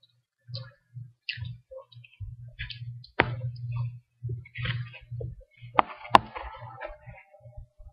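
Handling noise close to the microphone: soft low bumps and rustling, with sharp clicks or knocks about three seconds in and twice near six seconds.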